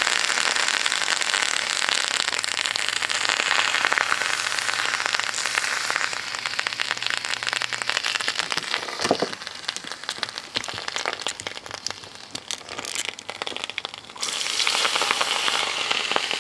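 Burnt-out dishwasher pump motor still on fire, its cooked winding insulation crackling and popping densely over a hiss. The crackling thins out after about halfway, and a louder rushing burst comes briefly near the end.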